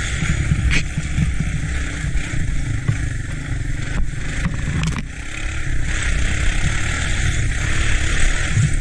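An ATC three-wheeler riding along with its engine running, under heavy rushing wind noise and rumble on the microphone. A few sharp knocks sound about a second in and again around four to five seconds in.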